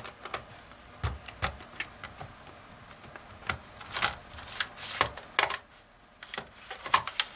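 Hands working on a laptop: scattered, irregular plastic clicks, taps and light knocks, with a few heavier thuds about a second in.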